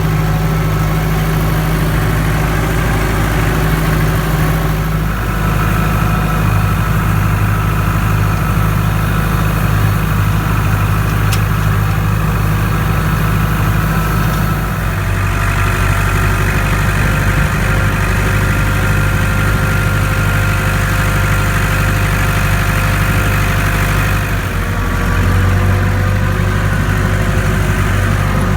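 Tractor engine running steadily while pulling a hay rake, its pitch shifting a few times as the engine speed changes.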